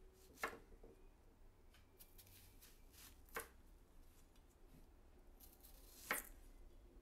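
A large kitchen knife slicing through a peeled onion into thick rounds, each cut ending in a sharp knock of the blade on the wooden cutting board: three cuts, a few seconds apart.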